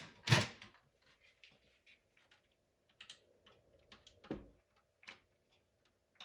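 Scattered light plastic clicks and taps as a smoke alarm's battery drawer is opened and its batteries are handled, with a duller knock about four seconds in.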